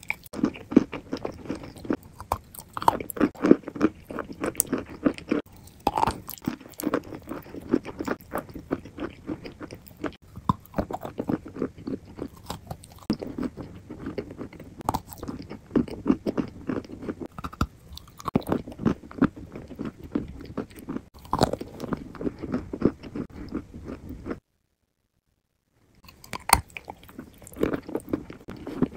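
Crunching and chewing of dry, chalky blocks: crisp bites cracking through, then grinding and crumbling between the teeth, in uneven bursts. About three-quarters of the way through, the sound cuts to dead silence for a second and a half before the crunching resumes.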